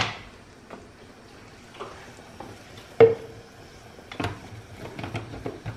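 Kitchen clatter while a little water is used to rinse out the blender jar into the salsa pot: a sharp clink with a short ring about three seconds in, and a few softer knocks afterwards.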